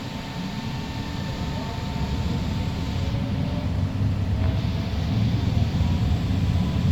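Light-rail train heard from inside the car as it pulls away from a station: a low rumble of motors and wheels that grows steadily louder as it gathers speed, with a faint steady whine above it.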